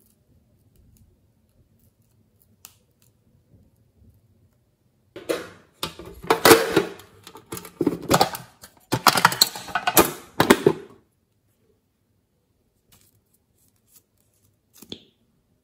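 A small sheet-metal tin being handled: a dense run of loud scrapes, clacks and rattles from about five to eleven seconds in, then a few faint clicks.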